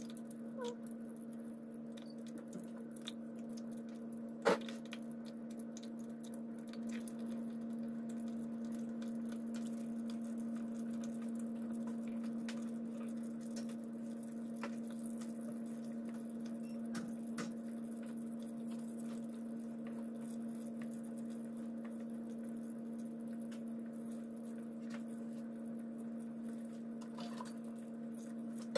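Induction hob humming steadily under a pot of hot oil, with soft scattered crackles and pops of chicken pieces deep-frying. One sharp click comes about four and a half seconds in.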